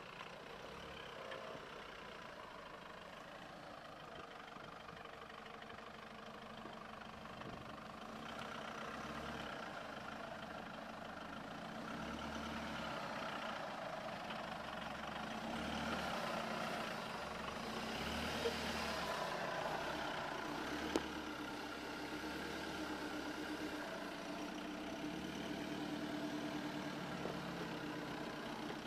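Jeep Liberty engine running at low crawling speed as it climbs slickrock, its level swelling and easing with the throttle. Two short sharp knocks come about two-thirds of the way through.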